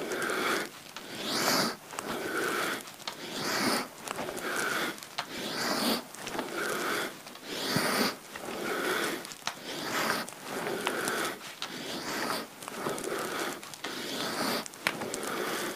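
A man's forceful, rhythmic breathing, about one breath a second, paced by repeated kundalini yoga frog-pose squats: breathing in while rising, out while sinking back down.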